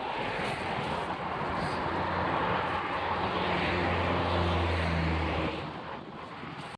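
A motor vehicle's engine passing by: a low hum that grows louder through the middle and fades about five and a half seconds in, over a steady rushing noise.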